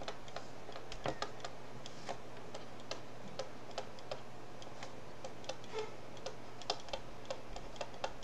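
Stylus tip clicking and tapping on a tablet screen during handwriting: short, sharp, irregular clicks, about three a second, over a faint steady hum.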